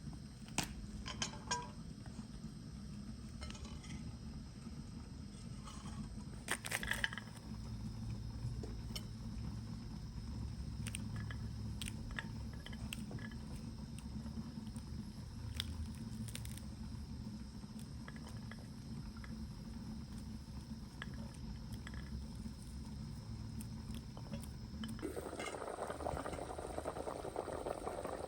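Kitchen utensils and dishes give scattered light clinks and knocks over a steady low rumble. About 25 seconds in, a steady boiling hiss starts and carries on.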